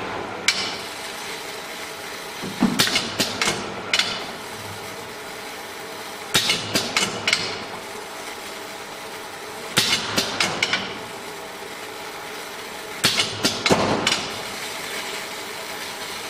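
Enclosed fiber laser marking machine with conveyor belt running with a steady hum. Four bursts of clattering knocks come about every three and a half seconds as the conveyor and its stops handle the metal bars between marking cycles.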